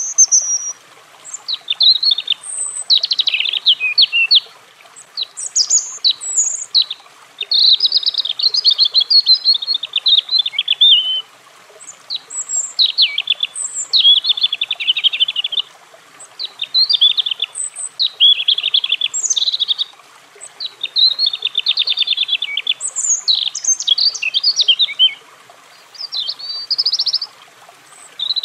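European robin singing: a run of varied, high, warbling and trilling phrases, each a second or two long, with short pauses between them.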